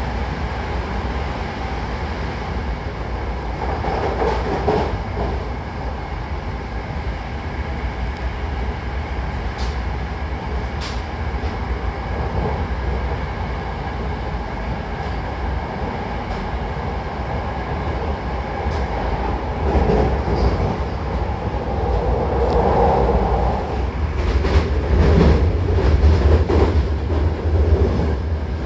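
Inside a Hankyu commuter train car running between stations: steady low rumble of the wheels and running gear, with a few faint clicks, growing louder near the end.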